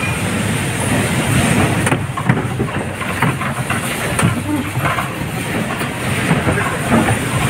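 Electric bumper car running across the rink floor: a steady rumble and rattle, with a few sharp knocks.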